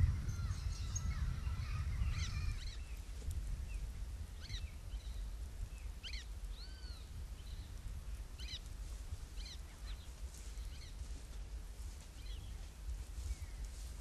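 Wild birds calling: a string of short, arched chirps roughly once a second, thicker and overlapping in the first couple of seconds, over a steady low rumble.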